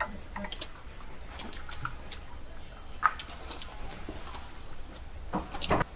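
Fried noodles being eaten close to the microphone: scattered small clicks of chewing and mouth sounds, with a longer, louder slurp near the end.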